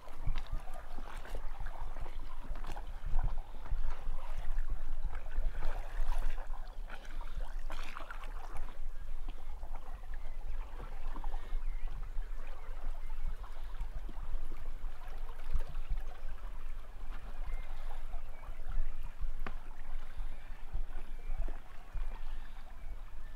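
Water rushing and splashing along the hull of a dinghy under way, with wind buffeting the microphone in an uneven, gusting rumble.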